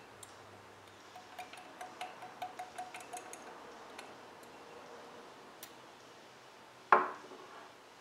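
Dip pen nib clinking against the inside of a glass ink bottle while being dipped: a quick run of light, ringing taps, about four or five a second. Near the end comes one much louder sharp glass knock with a short ring.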